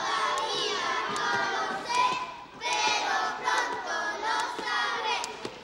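A group of children singing together, with a short break about two and a half seconds in.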